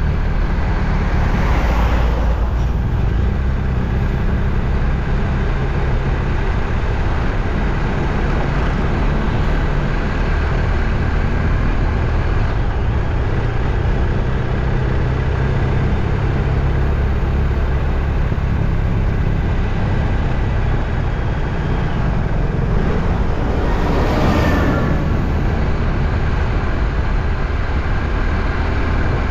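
Steady rumbling road noise of a moving vehicle, with two brief louder whooshes, one about two seconds in and one near the end.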